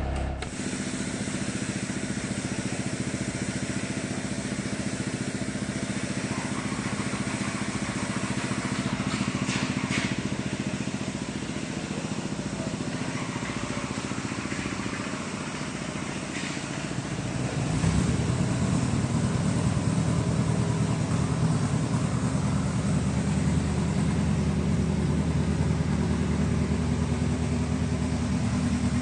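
Hitachi ZAXIS 70 excavator's diesel engine running steadily, with a few brief knocks. About two-thirds of the way through it gets louder and stays there, as the engine is revved or put under load.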